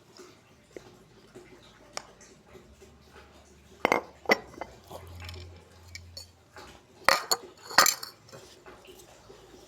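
Dishes and cutlery clinking and knocking during a meal: scattered sharp clicks, with the loudest clusters about four seconds in and again near the end.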